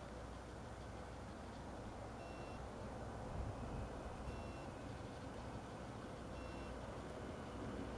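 A modernised DR1A(M) diesel multiple unit, with an MTU 8V396TC14 diesel engine and Voith hydraulic transmission, approaches with a low hum. Over the hum, an electronic warning beep sounds three times, about two seconds apart.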